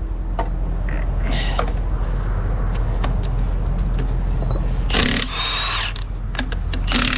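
Handheld power tool, of the drill or impact-wrench kind, whirring in two short bursts about five and seven seconds in while working the bolts on a DAF lorry's half shaft. Under it runs a steady low hum, with scattered small clicks of metal handling.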